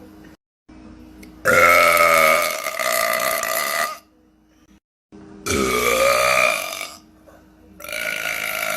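A woman belching loudly three times, each a long drawn-out belch of about one and a half to two and a half seconds, with short breaks between them; the last runs on past the end.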